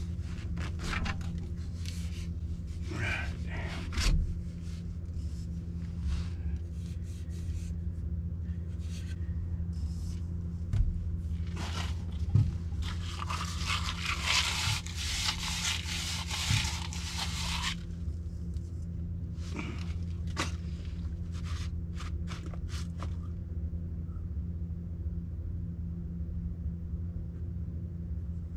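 Scraping and knocking of hands-on work, short and scattered, with a longer scrape lasting about four seconds near the middle, over a steady low hum.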